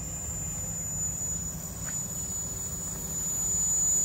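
Wood-fired vertical steam boiler under steam: a steady high-pitched whine over a low rumble.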